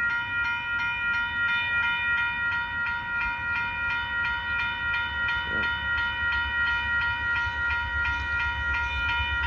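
Railroad grade-crossing warning bell ringing in quick, even strokes. Under it, the low rumble of the approaching Amtrak passenger train grows from about halfway through.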